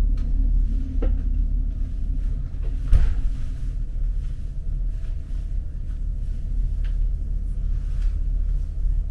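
Steady low rumble of a passenger boat under way, with a faint steady hum above it, a light click about a second in and a single knock about three seconds in.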